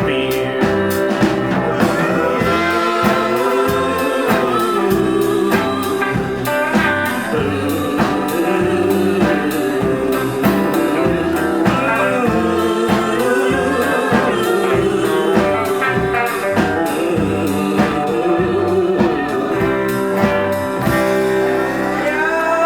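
Live country-blues band playing the closing stretch of a song: guitar and a lead line of bending, sliding notes over a steady bass-and-drum beat.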